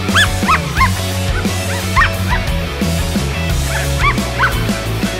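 Background music with a steady bass line, over a Belgian Malinois's many short, high-pitched yips and whines.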